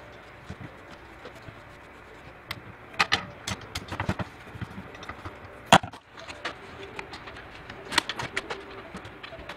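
Scattered sharp clicks and knocks of a screwdriver and hands working on an AMD stock CPU cooler's mounting inside a PC case, with small clusters of taps and one loudest click just before the middle.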